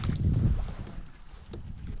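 Rumble and knocking of a fishing kayak on the water, loudest in the first half-second, then dropping to a few faint light knocks.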